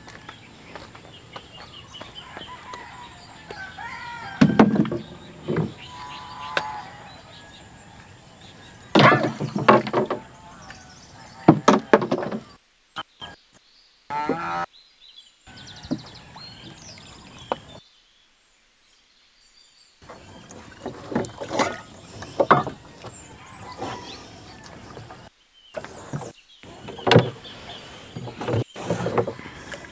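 Farm poultry calling: several loud pitched calls in separate bursts over a faint steady background, with a short drop to silence just past halfway.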